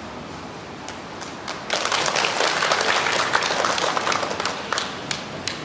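Applause: a burst of hand clapping starts about a second and a half in and thins out to a few last claps near the end.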